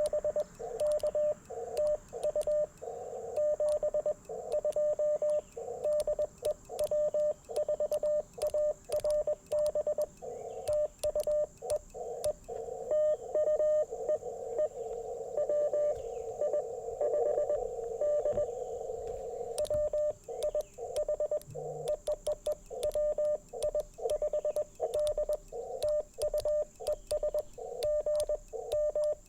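Morse code (CW) on an Icom IC-705 transceiver: a single mid-pitched tone keyed on and off in dots and dashes, heard through the radio's narrow CW filter with a band of hiss that thickens into a rush about halfway through. Many faint sharp clicks run alongside.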